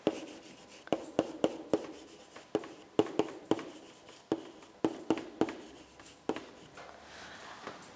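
Chalk writing on a blackboard: an irregular run of short sharp taps with some scratching as an equation is chalked up.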